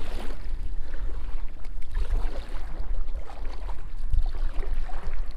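Kayak paddled across calm water: water sloshing against the hull, under a steady low rumble.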